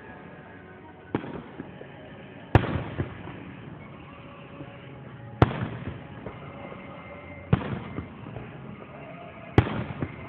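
Aerial fireworks shells bursting: five sharp booms roughly every two seconds, each trailing off briefly.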